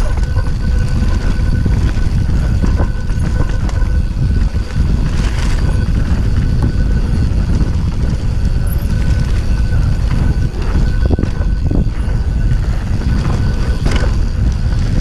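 Mountain bike rolling fast down a dirt trail: wind buffeting the camera microphone in a constant low rumble, with tyre crunch on dirt and the bike rattling over rough ground, and now and then a sharper knock or clatter.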